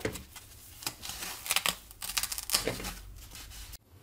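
Short bursts of rustling and scraping as a sheet of polyethylene packing foam is handled and cut on a wooden workbench, about four of them, cut off abruptly near the end.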